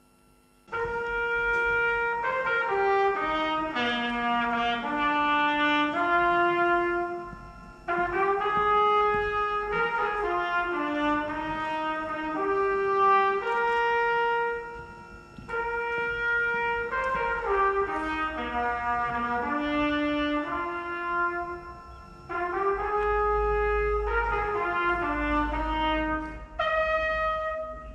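A solo brass instrument plays a slow melody, one note at a time, in four phrases with short breaks between them, ending on a held note.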